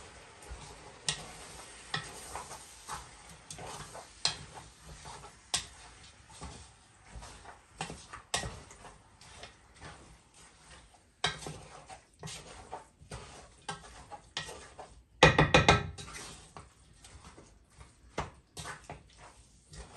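Wooden spoon stirring seasoned meat and chicken in a large pot, with irregular scrapes and knocks against the pot. About fifteen seconds in, a quick flurry of knocks is the loudest part.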